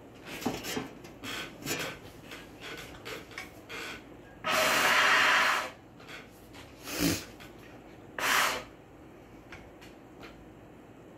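A trumpet player's breaths and handling noise while readying the trumpet: small clicks and rustles, then a loud rush of breath lasting about a second, about four and a half seconds in, then two shorter breaths. No notes are played.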